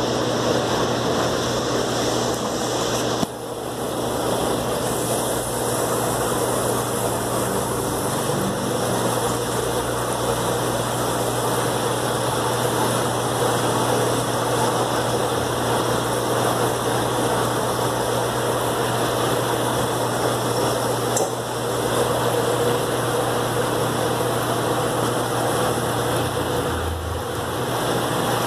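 Steady mechanical hum with a rushing hiss from running aquarium equipment in a fish room. It dips briefly about three seconds in, again around twenty seconds, and near the end.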